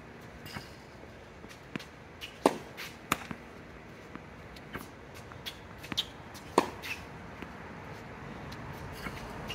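Tennis ball strikes and bounces on a hard court: a series of sharp, separate pops, the loudest about two and a half and six and a half seconds in.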